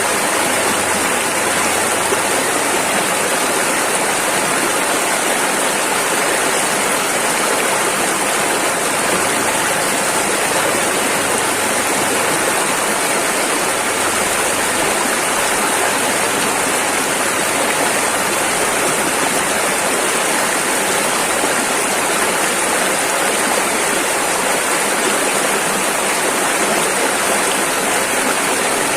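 A rushing river flowing over rapids, a steady, unbroken rush of water.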